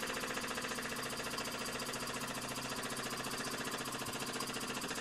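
Model steam traction engine's cylinder running steadily on the bench with a rapid, even beat. It is running free with no drive belt, and its slightly misaligned ports let a little steam escape on each exhaust stroke.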